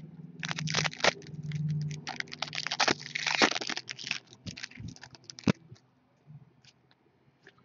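A foil trading-card pack and the hockey cards in it being handled: crinkling, rustling and clicking for about five seconds, then a few faint clicks.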